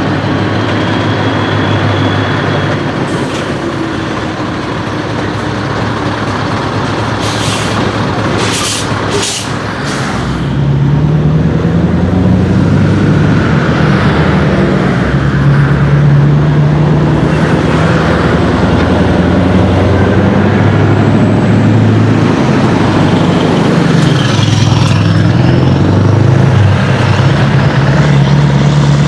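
Scania R500 V8 diesel truck running with its exhaust pipe open, pulling away and driving past. The engine grows much louder about ten seconds in and rises and falls in pitch near the end. A few sharp air hisses come just before it gets loud.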